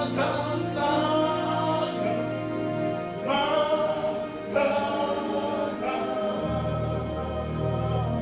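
Gospel worship music: voices singing together in sung phrases over sustained low chords, with the bass changing about six and a half seconds in.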